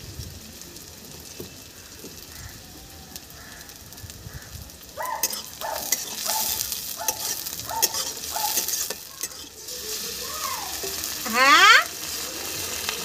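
Sliced onions sizzling in hot oil in an iron karahi over a wood fire. From about five seconds in, a metal spatula scrapes and knocks against the pan in regular strokes, about two a second, with a short ringing tone on each. Near the end a loud sound rises sharply in pitch.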